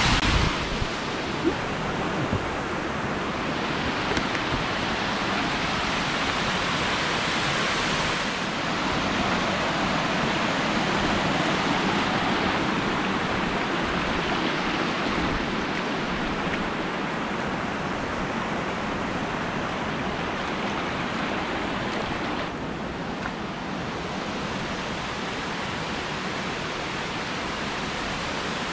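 Shallow river rushing over rock ledges in small cascades: a steady, even rush of water that eases slightly for the last few seconds.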